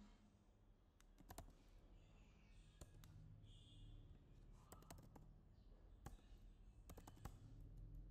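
Faint computer keyboard keystrokes, scattered single clicks and short runs of clicks over near-silent room tone.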